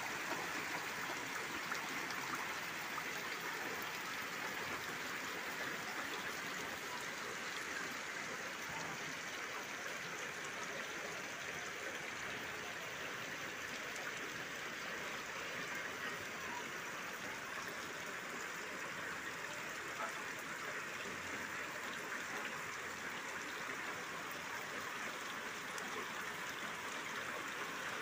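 Heavy rain falling onto shallow floodwater, with water running across the ground: a steady, even hiss with no let-up.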